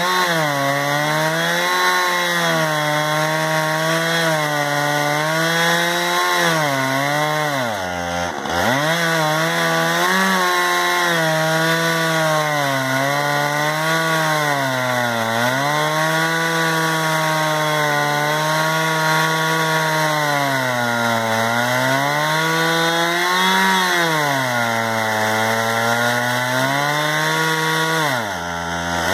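Chainsaw mounted in a chainsaw mill, ripping lengthwise through a log at high revs. Its engine pitch sags and recovers every few seconds as the cut loads it, with the deepest dip about eight seconds in.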